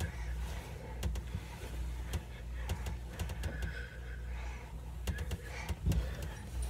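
Handling noise from a phone held close in a cramped hiding spot: scattered soft clicks and rustles over a steady low hum.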